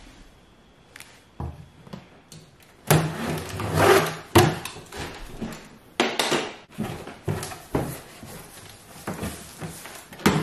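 A large cardboard box being opened by hand: flaps pulled back with cardboard scraping and rustling, and several sharp knocks and thuds. A longer stretch of scraping starts about three seconds in.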